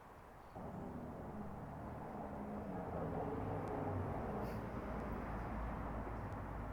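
Low, steady hum of a vehicle running, setting in abruptly about half a second in, growing louder over the next couple of seconds and then holding steady.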